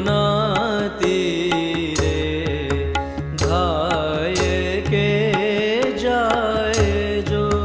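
Indian devotional music: an ornamented melody with gliding, wavering notes over a steady drone, with tabla keeping a regular beat.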